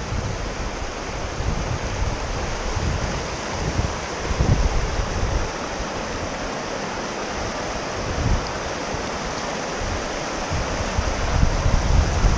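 Shallow river rapids rushing steadily over cobbles and rocks, with wind buffeting the microphone in short low gusts.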